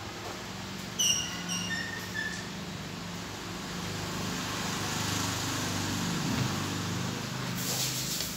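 A low engine hum, as of a motor vehicle running, wavering in pitch partway through, with a short run of high chirps about a second in and a hiss near the end.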